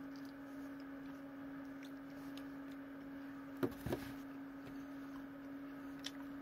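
A steady low hum with faint scattered clicks, and a brief louder sound a little past halfway.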